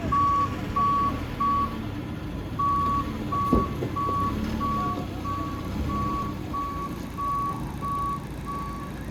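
Forklift reversing alarm beeping about twice a second over the forklift's engine running, the beeping pausing briefly about two seconds in. A single sharp knock midway.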